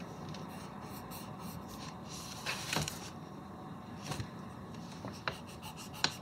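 Wooden pencil sketching on sketchpad paper: light, scratchy strokes, with a few sharper scrapes.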